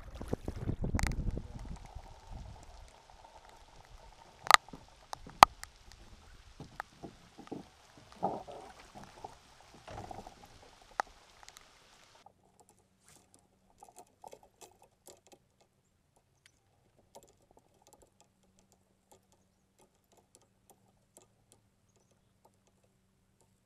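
Wind buffeting the microphone on a kayak on open water, then a steady hiss with a few sharp knocks. About twelve seconds in the sound cuts abruptly to a faint background with scattered small ticks.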